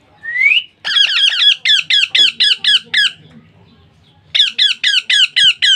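Baby parrot giving rapid, repeated begging calls, about five a second, in two bouts with a pause of about a second between them, after one short rising call. This is the food-begging call of a chick being hand-fed.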